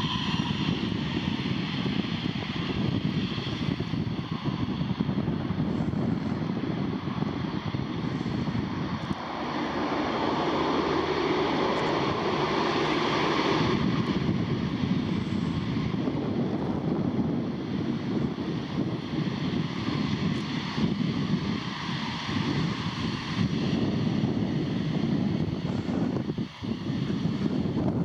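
Jet airliner's engines roaring steadily as the plane passes, with a faint high whine above the rumble and wind buffeting the microphone.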